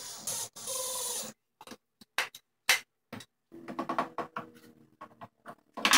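Makita cordless drill driving screws through a piano hinge into wood: two short runs in the first second or so. Then scattered clicks and knocks of clamps and wooden parts being handled, with one loud knock near the end.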